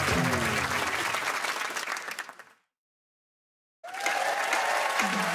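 Studio audience applauding over music, fading out about two and a half seconds in to dead silence, then starting again abruptly about a second later.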